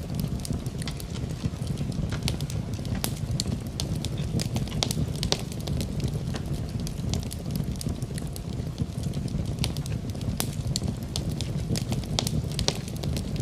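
Fireplace fire crackling: frequent sharp pops and snaps over a steady low rumble of the flames.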